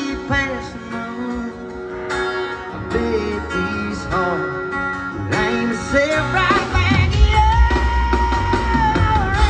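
Live country band playing, heard from the crowd: guitars and a voice over the band. The bass and drums come in fuller about two-thirds of the way in, and a long held note rings near the end.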